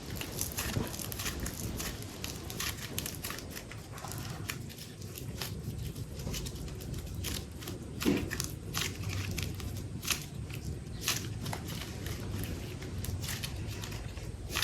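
Close-up handling of a super light modelling-clay pack and its plastic wrapping: irregular crinkling and small clicks, with one louder knock about eight seconds in.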